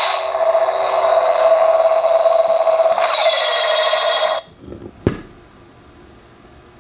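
Lightsaber-style beam saber sound effect from a homemade sound board: a loud buzzing hum with a steady tone, a falling sweep starting about three seconds in, and an abrupt stop after about four and a half seconds. A single sharp click follows.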